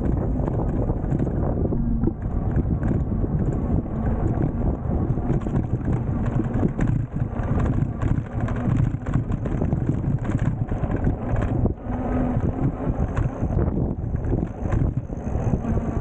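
Wind buffeting the microphone on a moving electric bike, a steady fluttering rumble mixed with road and tyre noise.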